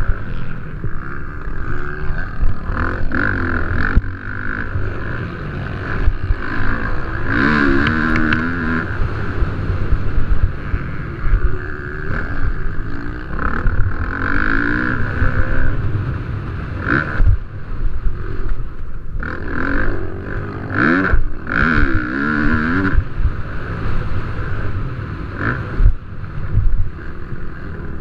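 Motocross bike engines racing, revving up and falling off again and again as riders work through the gears and corners.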